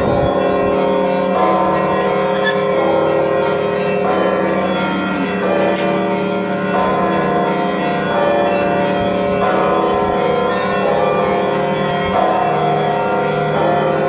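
Orthodox church bells of the Sviatogorsk Lavra ringing a zvon: several bells struck together in a repeating round about every second and a half, their tones overlapping and ringing on between strikes.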